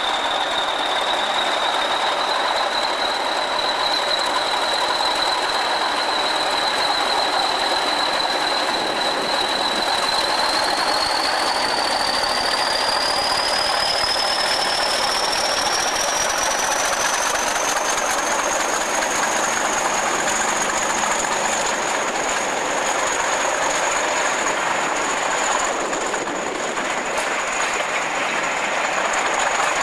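English Electric Class 40 diesel locomotive 40145 working a train past at close range, with its engine running under load. Its high turbocharger whistle climbs in pitch about a third of the way through and then holds steady at the higher note as the coaches roll by.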